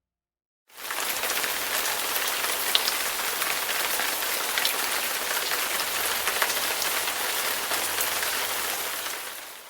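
Steady rain falling on a surface, a dense patter with scattered small ticks; it starts abruptly just under a second in and fades out near the end.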